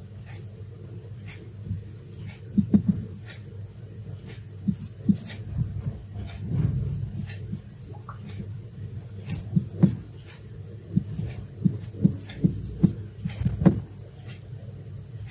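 Marker writing on a whiteboard: a string of short taps and scratches as the strokes are made, heaviest in the last few seconds, over a low steady hum.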